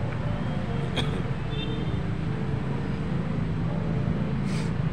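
Steady low rumble of nearby road traffic, with one sharp click about a second in and a brief hiss near the end.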